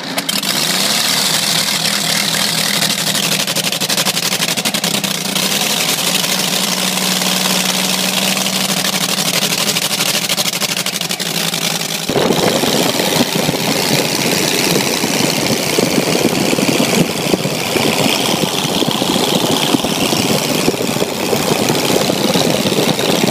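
Megola motorcycle's five-cylinder radial engine in the front wheel hub, running steadily with the front wheel spinning off the ground. About twelve seconds in the sound changes suddenly to a louder, rougher run as the bike is ridden.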